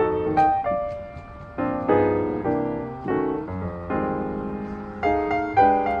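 Background piano music: single notes and chords struck one after another and left to fade.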